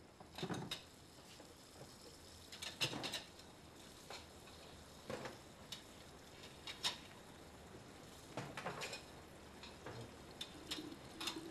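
Faint, scattered clicks and light knocks, one every second or two at irregular spacing, over a faint low hum.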